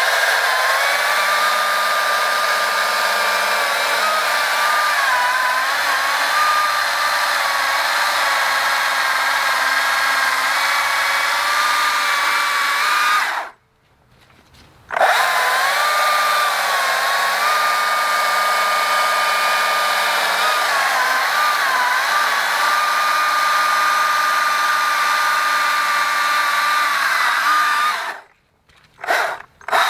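Stihl MSA 220 C battery chainsaw cutting through a log: a steady electric whine from motor and chain, its pitch dipping now and then as the chain bites under load. It cuts off twice for a second or so, about midway and near the end, then runs again.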